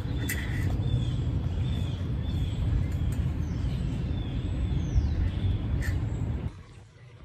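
Birds calling outdoors: short, repeated, downward-sliding chirps about once a second, with a couple of sharper calls, over a steady low rumble. The outdoor sound cuts off suddenly near the end.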